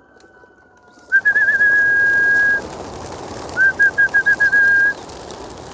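Whistling in two long, steady high notes: the first wavers briefly at its start, and the second comes out of a run of short chirps. Under it, about a second in, a mass of racing pigeons' wingbeats rushes up as the flock bursts out of the transport crates on release.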